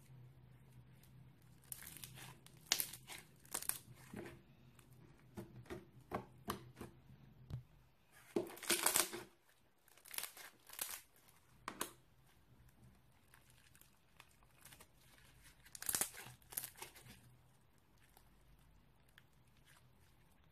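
Stiff red floam slime packed with foam beads being squeezed and stretched by hand, giving irregular clusters of crunchy crackles and pops, loudest about a third of the way in. The slime is hard and tears a little as it is worked.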